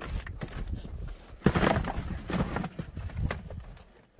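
Dried bananas being tipped out of a box, knocking and clattering onto wooden boards and into a hatch. The loudest clatter comes about a second and a half in, with a few smaller knocks after it, dying away near the end.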